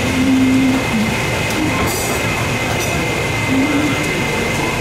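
Steady loud mechanical rumble and hiss with a constant high whine running through it.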